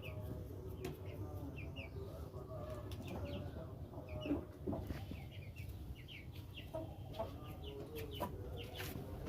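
A flock of Aseel chickens clucking, with many short, high peeps.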